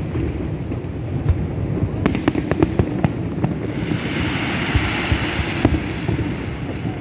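Fireworks display: a continuous low rumble of bursts with sharp bangs, a cluster of them about two seconds in, and a spell of hiss from about four to six seconds in.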